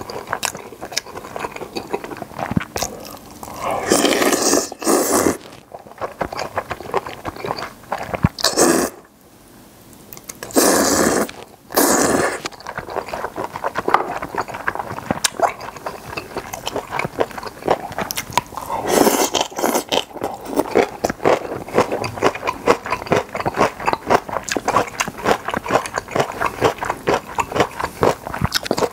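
Close-miked eating of jjamppong jjageuli, a spicy seafood noodle stew: rapid wet chewing and mouth clicks, with several louder slurps of noodles and broth.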